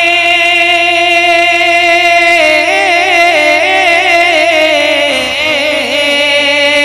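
A man singing a naat, drawing out one long vowel. It starts as a steady held note, turns into a wavering ornamented run about halfway, and slides down in pitch near the end.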